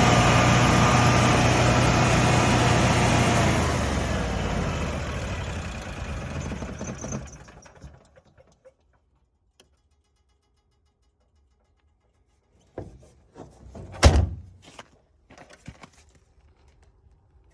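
Generac Guardian 20 kW standby generator engine running steadily, then shutting down and winding down to a stop over a few seconds; it is running now that its iced-up gas regulator has been thawed with warm water. After a pause, a few knocks and one sharp loud clack.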